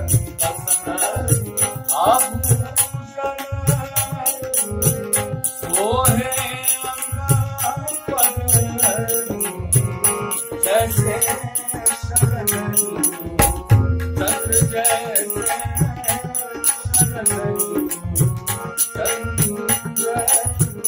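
Classical Kumauni Holi song: a man singing to his own harmonium, over a steady drum beat with jingling hand percussion in time.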